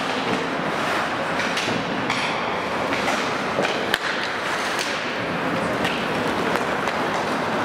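Ice hockey play on an indoor rink: skate blades scraping and carving the ice in a steady hiss, with scattered knocks of sticks and puck, the sharpest crack about four seconds in.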